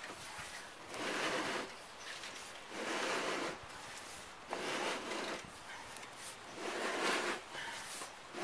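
Four rasping scrapes in a slow, even rhythm, about one every two seconds, each lasting under a second: hand work scraping or rubbing against a rough surface.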